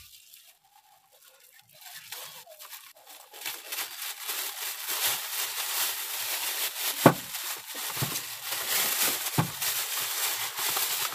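The packaging of a new oil filter being crinkled and torn open: papery, crackly rustling that starts about two seconds in and goes on, with two sharp knocks in the second half.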